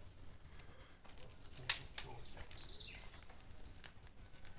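A sharp knock about a third of the way in, with a few fainter clicks, and a bird's call that sweeps down and then back up near the middle.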